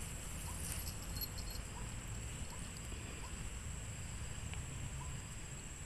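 Quiet outdoor riverside ambience: a low steady rumble under a thin, steady high-pitched tone, with a faint short chirp repeating about once a second.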